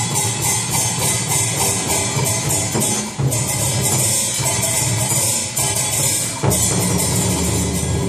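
Percussion-led accompaniment music from a traditional Vietnamese water puppet theatre ensemble: drums under a rapid, even clatter of high-pitched percussion, about five strikes a second. The music shifts abruptly about three seconds in, and a deeper drum sound comes in near the end.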